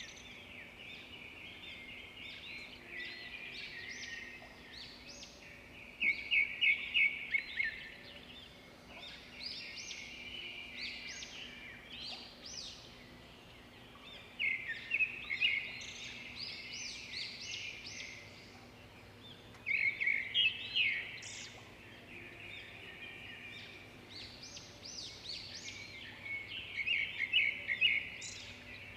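Songbirds singing: loud phrases of rapid repeated notes come every five to six seconds, with quieter calls between them.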